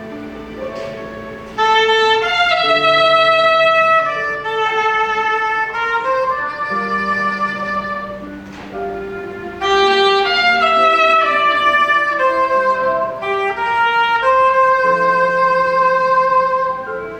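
Soprano saxophone playing a slow melody in long held notes.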